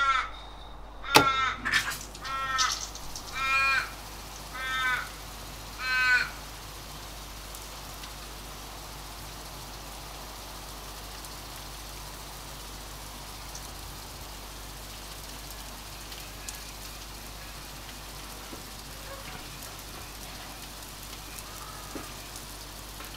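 A crow cawing, about seven calls in the first six seconds, with a sharp click about a second in; after that only a steady faint background.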